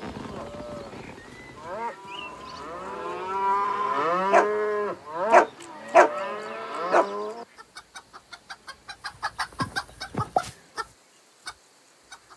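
Several cows mooing over one another, with three sharp knocks among the moos. About seven and a half seconds in, it switches to chickens clucking: a quick, even run of short clucks, about four a second, that thins to a few single clucks near the end.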